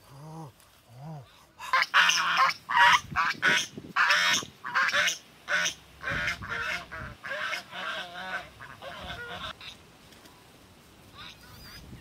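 Domestic geese honking: a couple of softer calls, then a long, rapid run of loud honks that stops about ten seconds in.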